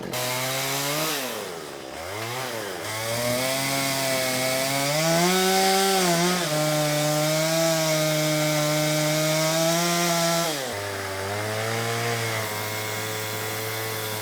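Chainsaw cutting into wood. The engine dips and picks back up twice in the first few seconds, holds a steady high pitch, then drops to a lower pitch about ten and a half seconds in.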